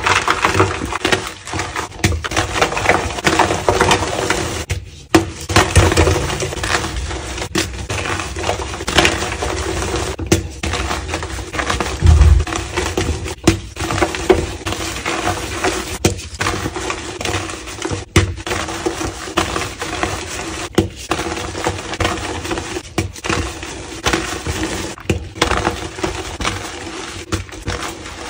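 Homemade blue-dyed gym chalk blocks being crushed and crumbled in the hands: continuous crunching and crackling, with brief breaks every few seconds.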